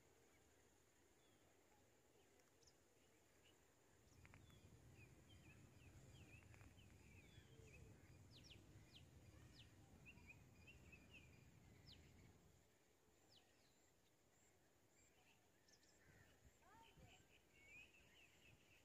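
Near silence: faint outdoor ambience with scattered short bird chirps, and a low rumble from about four seconds in until about twelve seconds.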